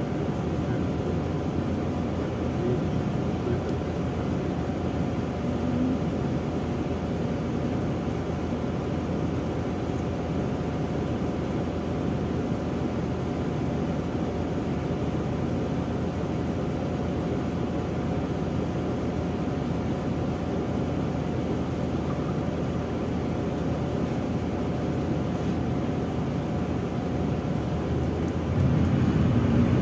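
MAZ 103.469 city bus idling at a standstill, heard from inside the passenger cabin as a steady engine hum. Near the end the engine revs up and the low rumble grows louder as the bus moves off.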